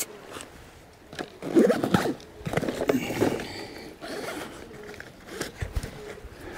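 Zipper of a Shimano tackle backpack being drawn open, then a hand rummaging and scraping through its pockets.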